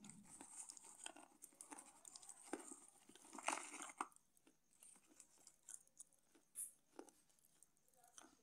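Slate pencil being chewed, a gritty crunching and crackling between the teeth. The crunches come thick and fast at first, are loudest about three and a half seconds in, then thin out to a few single crunches.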